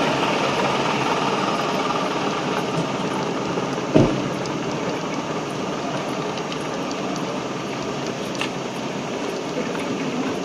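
Busy city street noise with vehicle engines running steadily, and one sharp knock about four seconds in.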